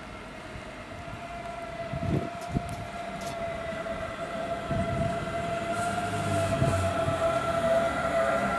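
Class 423 S-Bahn electric multiple unit running into the station, with a steady high electric whine that grows louder as the train approaches. A few low thumps come from the wheels and track, the first about two seconds in.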